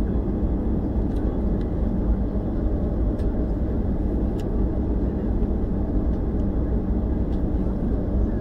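Steady jet-airliner engine noise and low rumble heard inside the cabin as the plane rolls slowly on the ground before takeoff, with a few faint clicks.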